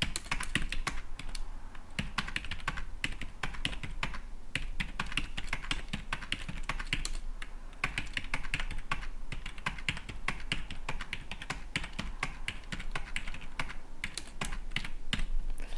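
Typing on a computer keyboard: a steady run of key clicks as numbers are entered one after another into table cells, over a faint low hum.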